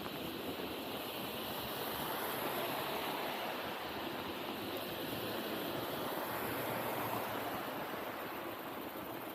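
Rain falling on a city street at night: a steady hiss that swells slightly through the middle.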